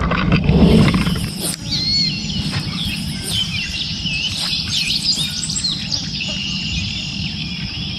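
Several birds chirping and singing in short whistled calls, over a steady high thin tone and a low rumble of outdoor noise that is louder in the first second.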